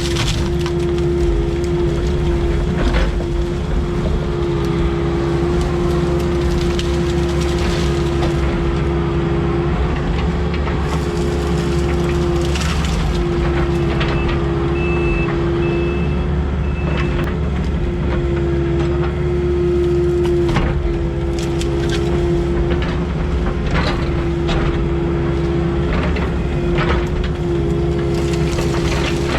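Diesel heavy equipment running steadily under load with a constant hum, while brush and branches crack and snap again and again as they are crushed. Three short, faint high beeps come about halfway through.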